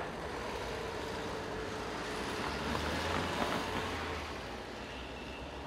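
A car driving across a level crossing, a low rumble that grows louder and peaks about halfway through.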